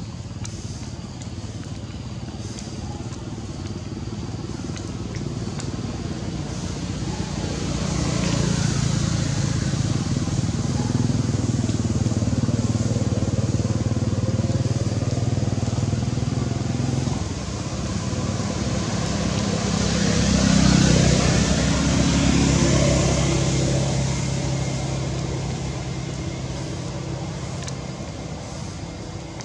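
A motor vehicle engine passing by. It grows louder, holds, dips briefly past the middle, peaks again about two thirds of the way through, then fades away.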